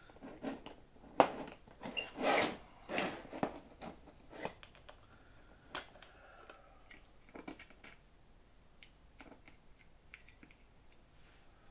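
Light, irregular clicks, taps and scrapes of small metal parts being handled on a thin aluminium plate: 3 mm countersunk pop rivets pushed into countersunk holes and a DZUS quarter-turn fastener spring set over their stems. The clicks come thickest in the first few seconds and thin out later.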